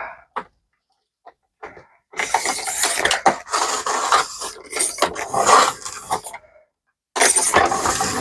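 Paper trimmer cutting through thick paper: a long scraping cut of about four seconds, then a short second cut near the end.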